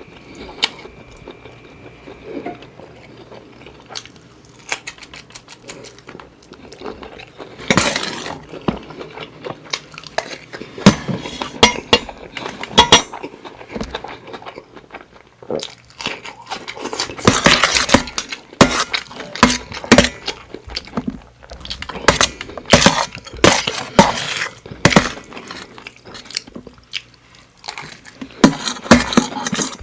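Cutlery clinking and scraping against a plate of fried rice during eating: many short sharp clicks, sparser at first and busier and louder in the second half.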